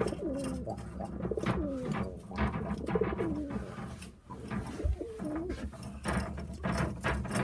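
Pigeons cooing in the loft, several overlapping coos that rise and fall in pitch, with a few short knocks among them.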